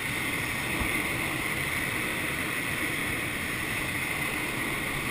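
Steady rush of air streaming over a glider's canopy in flight, heard from inside the cockpit.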